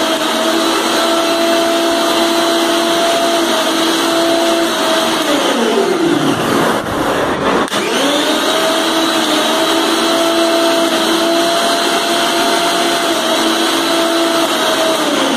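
Mixer grinder's brushed universal motor running at speed with no jar fitted, a steady high whine, on a test run after repair. About five seconds in it is switched off and spins down with a falling whine; after a click it is switched on again and spins back up, then winds down once more near the end.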